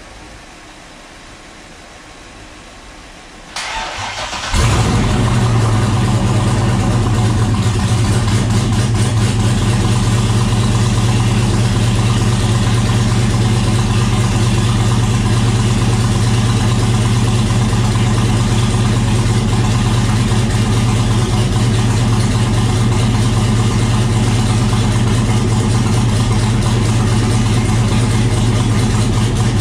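C6 Corvette's V8 cranking for about a second and catching about four and a half seconds in, then idling loudly and steadily. The exhaust is open: the new turbo manifolds and crossover dump straight out with the turbo not yet mounted, a first start to blow debris out of the hot side.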